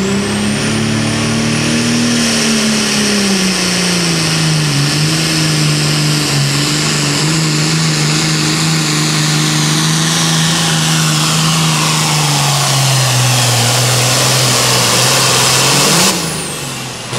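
Turbocharged diesel engine of a John Deere Super Farm pulling tractor running flat out under the pull of the sled. Its pitch falls in two steps as the engine lugs down under the growing load. Near the end the sound drops off suddenly.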